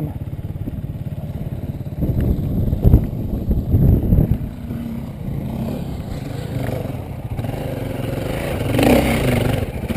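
Dirt bike engine idling with a steady rapid beat. A few sharp knocks and clatter of rocks come about two to four seconds in, and the sound swells briefly near the end.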